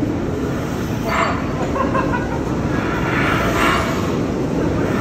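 1898 Beyer, Peacock steam locomotive in a wheel-running demonstration: a steady low rumble with a hissing puff about every two seconds, twice here.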